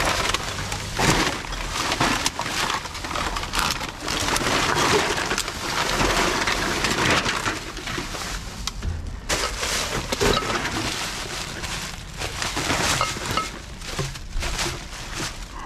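Household rubbish being rummaged through by hand in a dumpster: plastic garbage bags and packaging rustling and crinkling without a break, with scattered short knocks of items being shifted.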